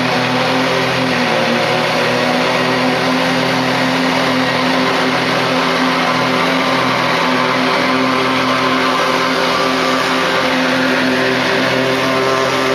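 Bad Boy zero-turn ride-on mower running steadily under load while mowing, with an even engine drone.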